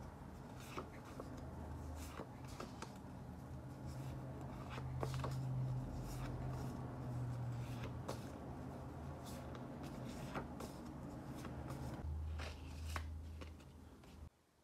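Stiff printed paper cards being handled and leafed through: irregular rustling with sharp little clicks and taps as the cards slide and knock against each other, over a low steady hum. The sound stops abruptly near the end.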